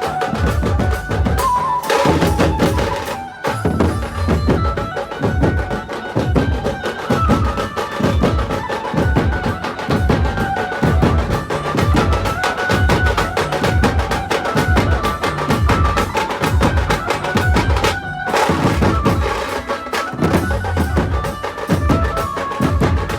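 Loud, drum-heavy Indian procession music: rapid, regular drum strikes under a melody line, with two brief breaks in the beat.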